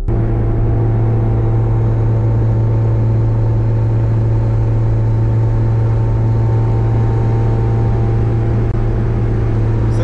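Honda Civic's naturally aspirated H2B four-cylinder engine running at steady revs while driving, heard from inside the cabin as an even, unchanging drone.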